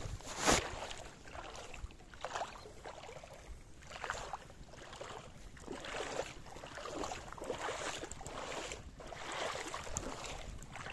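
Handling noise from a baitcasting rod and reel while a lure is fished: a sharp knock about half a second in, then irregular rubbing and rustling about once a second.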